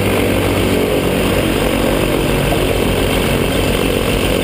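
Ultralight trike's rear-mounted engine and pusher propeller running steadily at low power on the ground.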